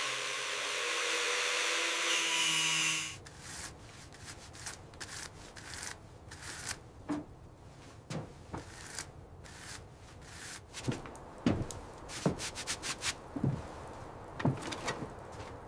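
A power tool runs steadily and cuts off about three seconds in, followed by scattered light taps and knocks on wood.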